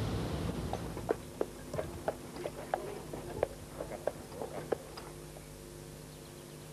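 Ducks on the river making a scatter of short, soft clicks and ticks at irregular intervals, over a faint steady hum.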